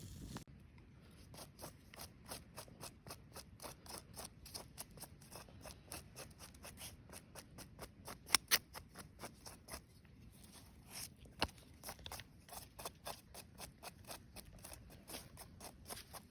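A long run of short, crisp clicks, about three to four a second, with a few louder ones partway through.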